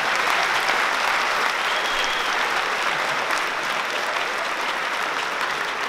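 Theatre audience applauding, a dense steady clapping that eases off slightly near the end.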